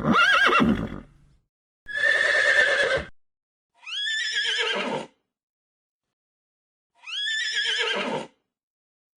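Horse neighing four times: separate whinnies about a second long, with silent gaps between them; the last two sound alike.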